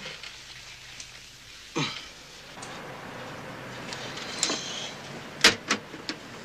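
A few short knocks and clicks over a low steady hiss, the loudest about two-thirds of the way through.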